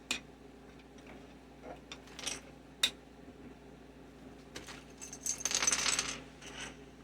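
Plastic keycaps being handled and set down on a table: a few sharp clicks, the loudest about three seconds in, then a second or so of dense rattling and rustling about five seconds in.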